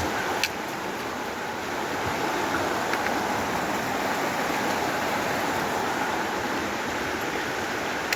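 Steady rushing of flowing creek water, an even noise with no change in level.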